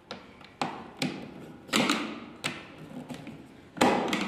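A handful of irregular hard taps and clacks of a screwdriver and plastic parts as a toy ride-on car's plastic windshield frame is fitted to its hood with a small bolt.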